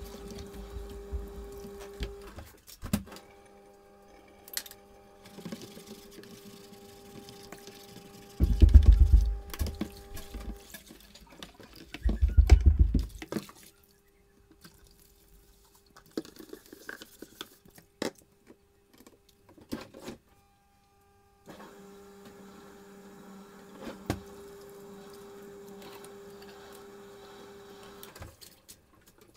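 Hand-washing a large metal pot and a plastic bowl at a sink: scattered clinks, knocks and water sounds over a steady hum. Two louder low rumbling thumps come about 9 and 12 seconds in.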